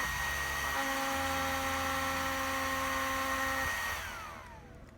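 Small cooling fan on an 80 A brushless ESC spinning with a steady whine, powered through a faulty on/off button. About four seconds in it loses power and winds down in a falling whine.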